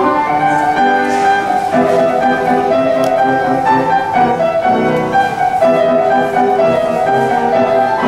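Instrumental classical music with piano, playing steadily as ballet accompaniment.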